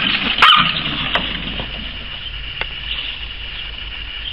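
A grey poodle puppy gives a short yip about half a second in and another brief falling yelp at the very end, over a steady high-pitched whine and a few faint clicks.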